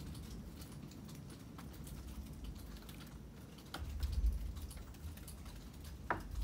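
Rainwater dripping around a porch in irregular, scattered taps, with a brief low rumble about four seconds in.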